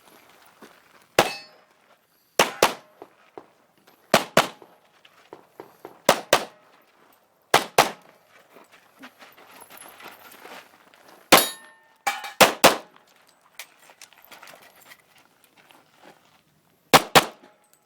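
Glock 35 Gen4 pistol in .40 S&W firing about fourteen shots, mostly as quick pairs with pauses of one to four seconds between them.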